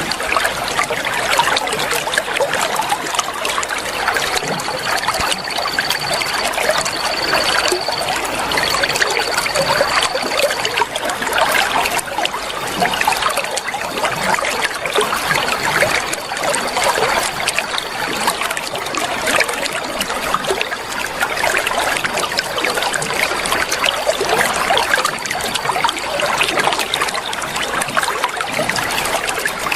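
Water trickling and babbling like a small stream, steady throughout. A faint high, steady whistle is held for a few seconds at a time, on and off, during the first half.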